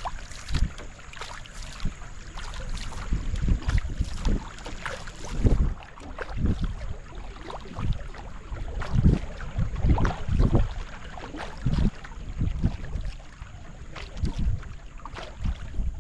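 Canoe paddle strokes: the blade dipping and pulling through the water with small splashes and drips, repeating throughout. Wind buffets the microphone in irregular low gusts.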